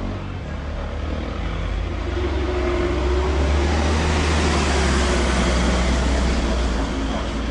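Street traffic: a motor vehicle passing, its low engine rumble and road noise growing louder toward the middle and then easing off.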